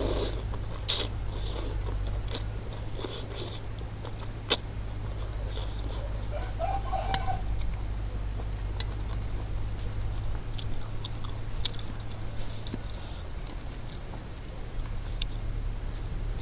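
A person eating beef noodle soup close to the microphone: chewing and mouth sounds with scattered small clicks and taps, one sharper click about a second in, over a steady low hum.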